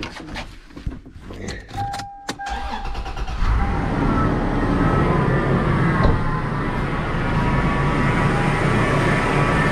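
2004 Toyota 4Runner engine starting about three seconds in, after a few clicks and a short steady tone, then idling steadily with a high whine over it. The whine is the power steering pump screaming, a pump the owner says is starting to struggle, with the steering going stiff at times.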